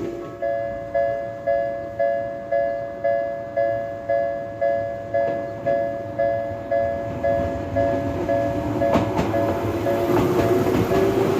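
Electronic Japanese level-crossing alarm sounding, a two-note ding repeated about twice a second, each strike dying away. About nine seconds in, a passing train's running noise and a rising motor whine come up over the bell.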